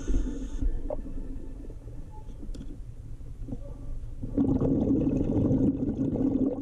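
Muffled underwater rumble and gurgling, as heard through a GoPro's waterproof housing in a river, growing louder for the last couple of seconds.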